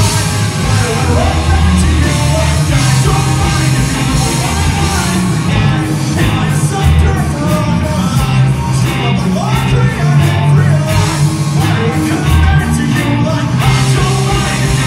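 Live rock band playing: electric guitars, bass guitar and drum kit, with a man singing into a microphone.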